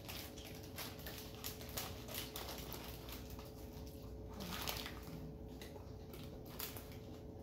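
Faint, irregular crackling and clicking as snack crackers and their packet are handled and eaten, over a faint steady hum.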